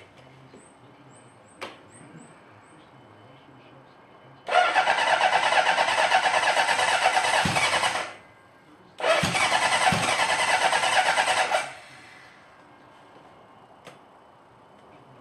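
1977 Honda CB750's electric starter cranking its inline-four engine in two bursts of about three seconds each, with the choke held on; the engine does not catch.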